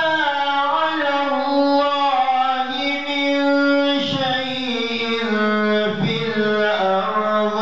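A man reciting the Quran in the melodic tilawa style, drawing out long held notes that slowly bend in pitch, with short breaks about four and six seconds in.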